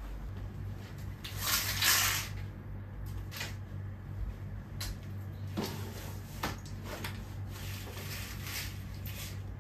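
Handling noises in a small room: a brief loud hiss-like rustle about one and a half seconds in, then scattered light clicks and knocks, over a steady low hum.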